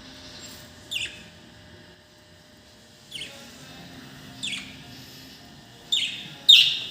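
Pet budgerigars chirping: five short, sharp calls that each drop quickly in pitch, a second or more apart, with the last two close together near the end and the final one the loudest.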